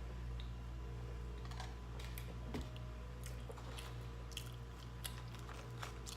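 Close-up chewing of fast food, with wet mouth clicks and small crunches scattered throughout, over a steady low hum.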